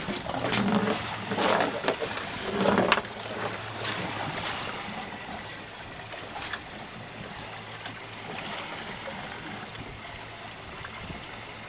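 Sea water slapping and trickling against a small boat's hull, with a steady low hum underneath. A few louder, indistinct sounds come in the first three seconds, then the water settles to an even wash.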